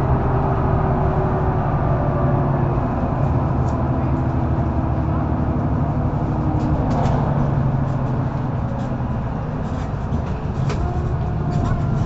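Mercedes-Benz O530 Citaro facelift intercity bus underway, heard from inside: the diesel engine and ZF automatic gearbox running steadily, with the engine note slowly shifting in pitch and occasional short clicks and rattles from the bus body.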